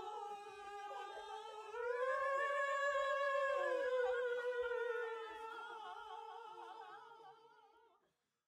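A small group of voices sings one long held note together, with hands at their throats. The note rises a step about two seconds in, wavers slightly, and fades out near the end.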